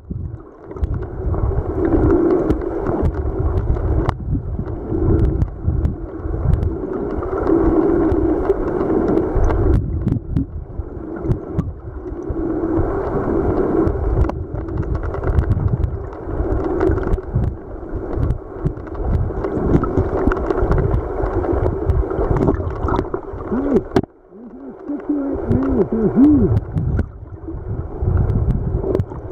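Muffled rush of creek water moving around an underwater camera housing, with some gurgling bubbles. The sound drops out briefly about four, ten and twenty-four seconds in, and a run of bubbling gurgles follows the last break.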